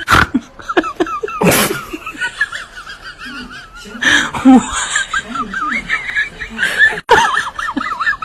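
People laughing and squealing in high voices, with two loud sudden bursts of noise: one right at the start and a longer one about a second and a half in.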